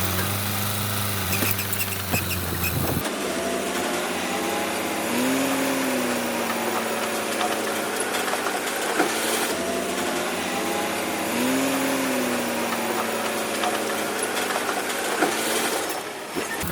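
Diesel engine of heavy earthmoving machinery running steadily. About three seconds in, the sound changes abruptly and loses its low hum.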